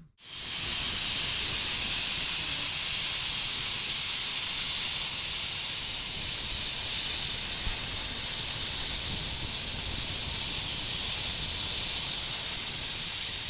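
Pressure cooker venting steam through its pressure valve in a steady, loud hiss. This is the pot releasing its built-up pressure.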